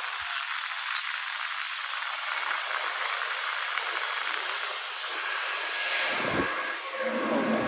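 Steady hissing rush of cooling fans from running GPU mining rigs, with a brief low bump about six seconds in.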